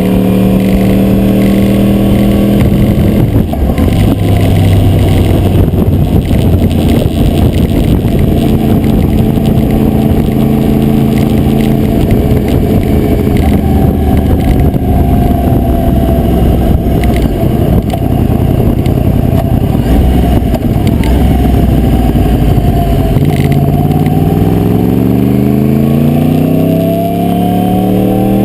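2009 Yamaha R1 crossplane inline-four engine, recorded through a GoPro Hero2 fixed to the bike, with the camera rattling in its adhesive mount. The engine note drops about three seconds in, runs rough and noisy for a long stretch, then climbs steadily in pitch under acceleration near the end.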